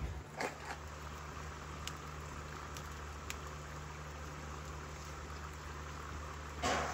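Liquid nitrogen boiling around a steel wheel-bearing race cup in a bath, a steady fizzing hiss: the race is still chilling down, so it will shrink enough to drop into the hub. A few light clicks early on and a brief louder burst of noise near the end.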